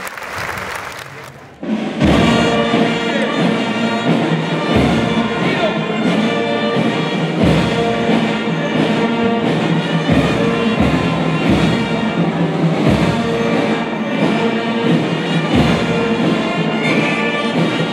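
School band of saxophones, clarinets, trumpets and bass drum starting a march about two seconds in, playing held brass and reed chords over low bass-drum beats. Applause dies away just before it begins.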